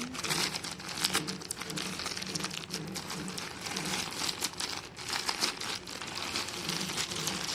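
Packaging being handled and opened: continuous irregular crinkling and crackling as a parcel wrapper is pulled and torn open.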